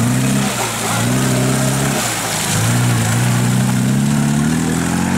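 Small tractor's engine working hard through a mud hole. Its note sags and picks back up twice, then runs steadily.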